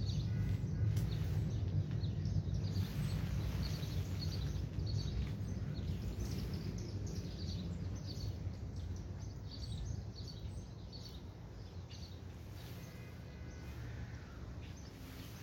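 Small birds chirping on and off over a steady low rumble that eases off about two-thirds of the way through.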